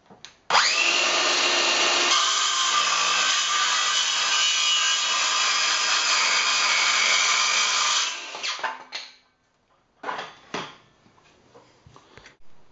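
Bosch 36-volt cordless circular saw spinning up about half a second in and cutting through a timber board, running steadily for about seven seconds before winding down. A few sharp knocks follow near the end.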